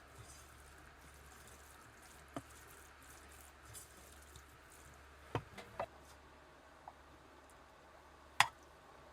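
A few scattered light clicks and knocks over a faint steady low hum, the loudest one near the end.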